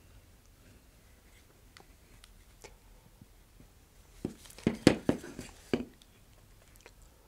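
Quiet room, then a short run of sharp clicks and crinkles about four to six seconds in: gloved hands handling a plastic piping bag of epoxy against the fiberglass rocket parts.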